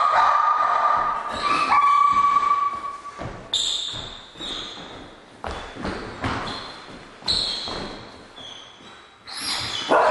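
A dog's high steady whine, then about five sharp knocks, each ringing on and dying away slowly through a large, bare, hard-floored room.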